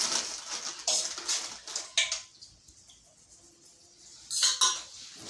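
A metal spoon scraping and clinking against a steel bowl as spicy instant noodles are mixed in it. It comes in irregular bursts, with a pause of about two seconds midway.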